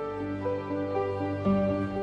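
Background music of slow, held notes that change every half second or so.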